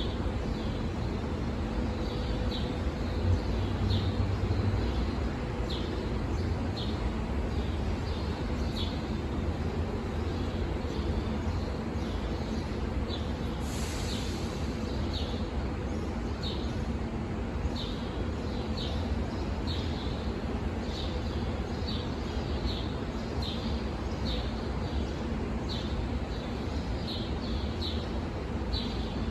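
Steady low rumble and hum of a SEPTA train of GE-built Silverliner IV electric cars standing at the platform, with small birds chirping repeatedly over it. A short burst of hiss comes about halfway through.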